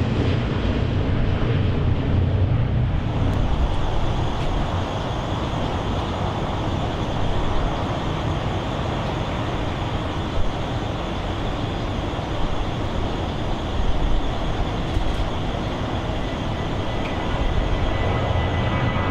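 Airliner jet engines at takeoff power, a steady loud rumble of noise. At first it comes from a four-engine Airbus A340 climbing out; after a change about three seconds in, it comes from a twin-engine Boeing 757 lifting off and climbing away.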